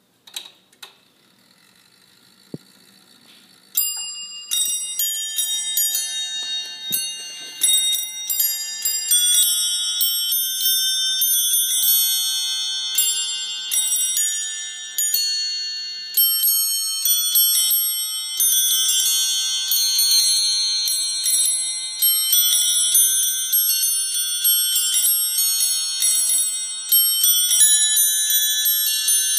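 Standing clock's carillon playing a melody: a pinned cylinder trips hammers onto a stack of nested bowl bells, giving a run of overlapping ringing notes. A few clicks and a faint whirr from the gearwork come first, and the tune starts about four seconds in.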